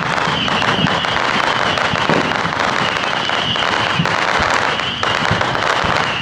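Wood fire burning in a washing-machine-drum fire pit, crackling and popping continuously over a steady rush of flame.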